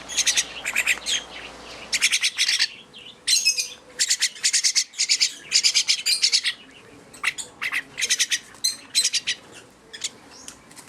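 Baby mynah birds calling in short bursts of rapid, high-pitched notes, repeated over and over: the begging calls of hungry fledglings being hand-fed.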